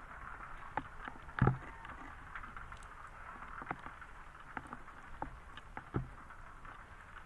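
Scattered light knocks and taps from handling a cast net aboard a small boat while fish are picked from it, the loudest about a second and a half in, over a steady hiss of water around the boat.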